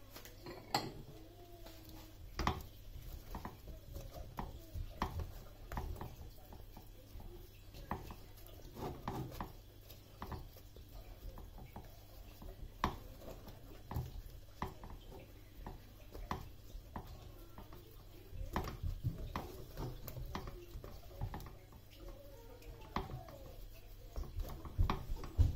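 Hands turning and tossing spice-coated aubergine slices in a ceramic bowl: irregular soft taps, clicks and wet squelches of the slices against each other and the bowl.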